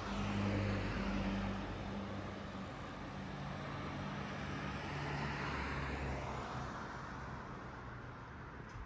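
Steady hum of a passing engine, loudest in the first second or two and slowly fading, its pitch dropping slightly about three seconds in, over a broad outdoor hiss.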